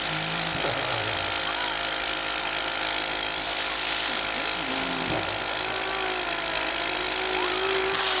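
Cough assist machine (mechanical insufflation-exsufflation device) running: a steady rush of air through its hose and mask.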